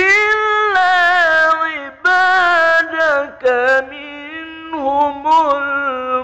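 A man's solo voice reciting the Quran in melodic tilawah style. He starts a new phrase at once after a pause, with long, ornamented notes that bend up and down.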